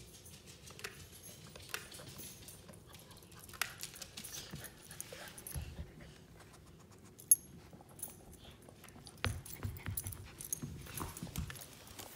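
Pet dogs moving about close by, with scattered light clicks and knocks and one sharp click about seven seconds in.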